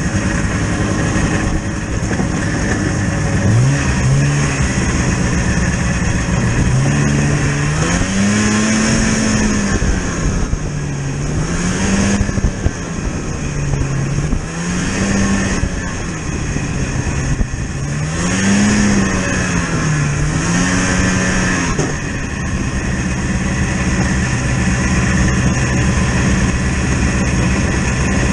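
A motor vehicle's engine running, its speed rising and falling over and over through the middle, then holding steady again.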